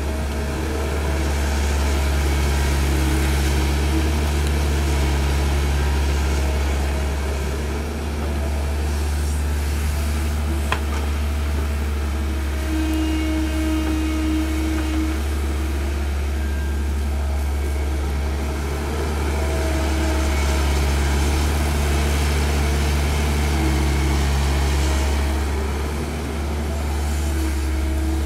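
Caterpillar hydraulic excavator's diesel engine running steadily under load as it digs and loads a dump truck, with a higher working note coming and going in three stretches of a few seconds. A single sharp click about eleven seconds in.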